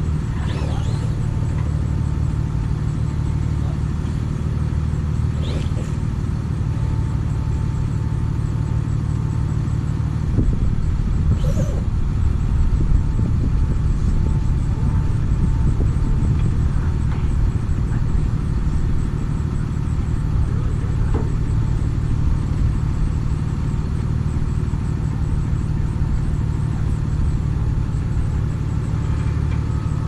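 Diesel engine of a bucket truck running steadily at idle to drive the boom hydraulics, a little louder for a few seconds about ten seconds in, with a brief sharp sound about eleven seconds in.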